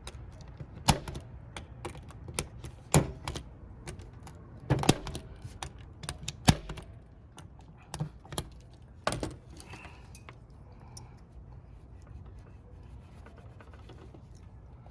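Punchdown tool snapping as it seats and trims Cat6 wire conductors in a keystone jack's terminals: a series of sharp snaps one to two seconds apart, then quieter handling of the jack after about ten seconds.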